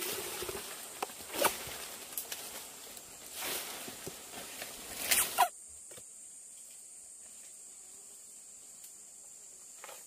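A machete hacking and scraping into a fibrous palm trunk: irregular sharp chops and tearing scrapes that stop suddenly about five and a half seconds in. After that only a steady high drone of forest insects is left.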